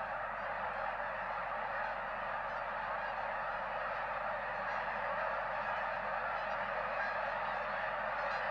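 A large flock of geese honking together in a dense, continuous chorus of overlapping calls.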